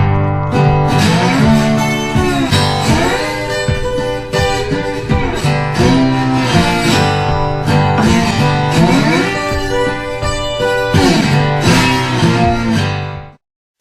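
Background music: a guitar-led country-blues track with notes that slide up and down. It cuts off suddenly just before the end.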